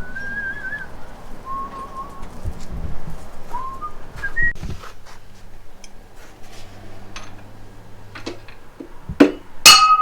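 A person whistling a few short, wavering notes of a tune, amid light clicks of work with parts. Near the end comes a sharp metallic clink that rings.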